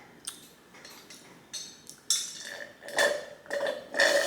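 Metal cutlery scraping and clinking against a plate as the last bits of spaghetti are gathered up. A few light clicks come first, then sharper strokes about two, three and four seconds in, each with a brief ringing tone.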